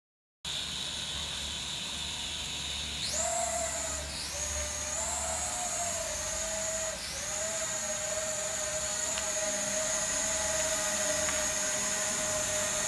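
HJ28 toy quadcopter drone's small motors and propellers whining. About three seconds in, the pitch jumps up as the rotors speed up for takeoff. It dips and climbs again twice, then holds as a steady high whine while the drone hovers.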